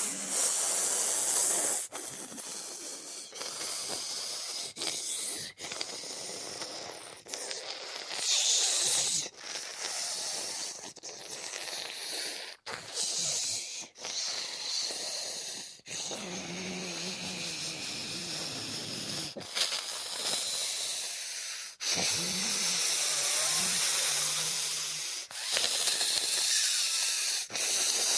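Zombie sound effects: a string of breathy, hiss-like snarls and rasping exhales, cut one after another with brief gaps between them. Low, drawn-out moans come in over the second half.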